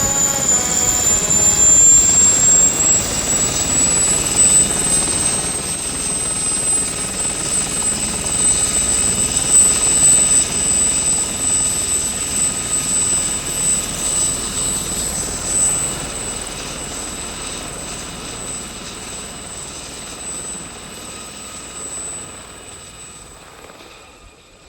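Aircraft engine sound effect: a steady rumble with a high whine that rises slightly and then holds, fading away over the last several seconds.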